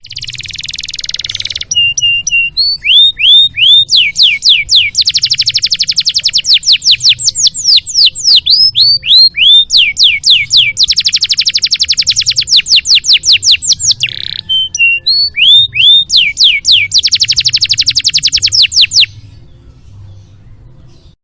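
Canary singing a long, varied song. A harsh buzzing note opens it, followed by clear whistles and downslurred notes broken by long runs of very fast trills, over a faint low hum. The song stops near the end.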